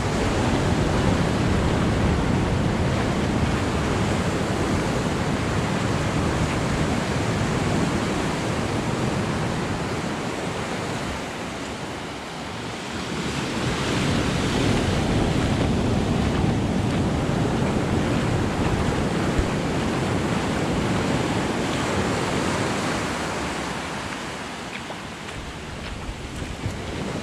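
Ocean surf washing up over sand and around rocks, swelling and ebbing in two long surges, with a lull about halfway through.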